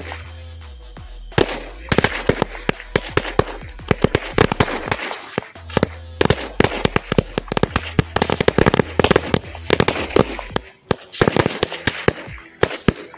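A string (ladi) of small bijli firecrackers going off in a rapid, irregular chain of sharp bangs, starting about a second and a half in and running on until near the end.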